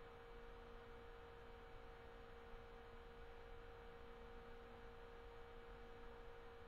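Near silence: room tone with a faint, steady hum of a few held tones.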